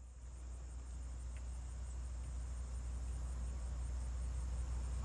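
Crickets chirping steadily in a high, evenly pulsing trill, over a low rumble.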